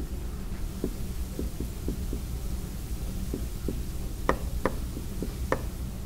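Light taps and ticks of a marker on a whiteboard, about a dozen scattered through, a few sharper ones near the end, over a steady low room hum.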